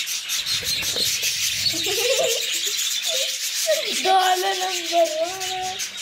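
Budgerigars chattering steadily in a high, busy twitter. About four seconds in, a man's voice joins with a long drawn-out call to the birds.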